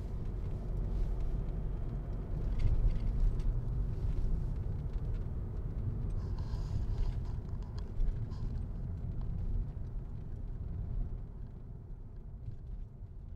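Car driving slowly, a steady low rumble of engine and tyres that fades off near the end.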